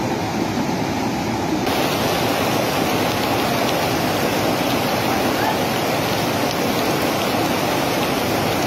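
Steady rushing of a swollen, flooding river, fast muddy water pouring past, growing brighter and hissier about two seconds in.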